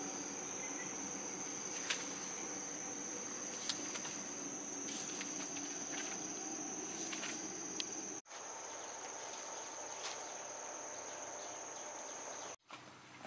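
A steady, high-pitched insect chorus, with a few sharp clicks or taps during the first eight seconds; the sound drops out for a moment twice.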